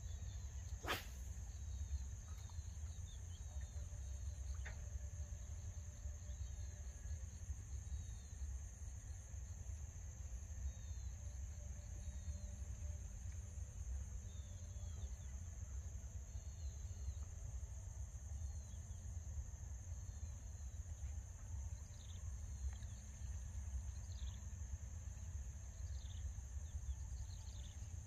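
Marsh ambience: a steady high-pitched insect drone with many short bird chirps scattered through it, over a low rumble. A single sharp click comes about a second in.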